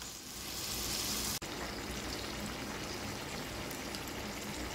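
Fish pieces frying in a tomato and ketchup sauce in a wok, sizzling steadily, with a brief cut-out about a second and a half in.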